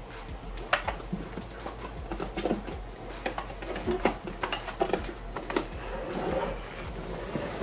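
Butcher paper crinkling and an aluminium foil pan rattling and knocking against the inside of a plastic cooler as wrapped meat is handled, in a run of short irregular clicks and rustles.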